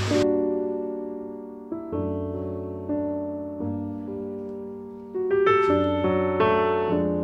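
Background piano music: gentle chords and notes struck about once a second, each dying away.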